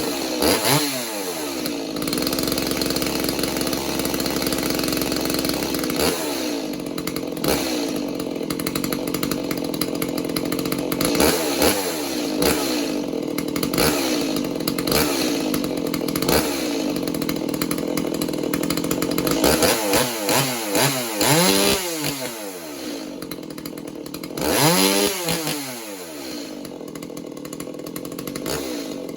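Stihl 017 two-stroke chainsaw running, revved up and dropped back several times, with a run of quick blips of the throttle about two-thirds through. It is being run to check that the freshly repaired chain oiler pumps oil without leaking.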